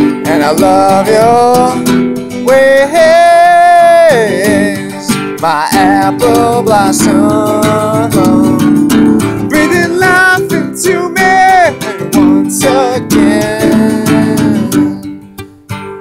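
A man singing over a strummed acoustic guitar, with one long wavering held note about three seconds in. Near the end the voice stops and the guitar carries on alone, growing quieter.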